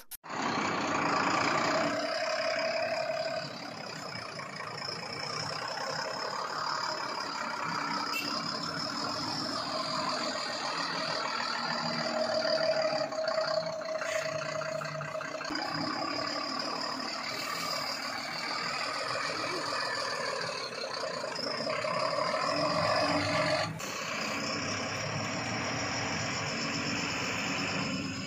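BharatBenz tipper truck's diesel engine running, with a steady high whine over it; the sound shifts abruptly about three and a half seconds in and again near the end.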